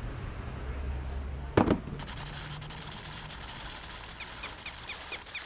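Cartoon sound effects: a sudden loud hit about one and a half seconds in, then a steady crackling hiss, with a quick run of about six short high chirps near the end.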